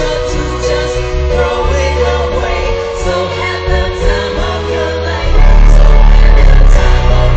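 Live pop music from a concert sound system: singing over sustained chords. About five seconds in, the music jumps much louder with heavy bass.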